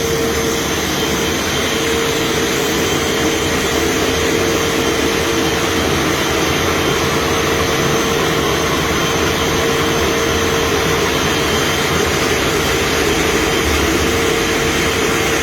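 Floor surface-preparation machine for stripping a coating off concrete, running steadily with a constant mid-pitched whine over a broad rushing noise.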